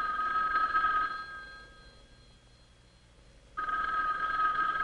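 Conventional rotary-dial desk telephone's bell ringing for an incoming call. One ring dies away about a second in, and the next ring starts sharply about three and a half seconds in.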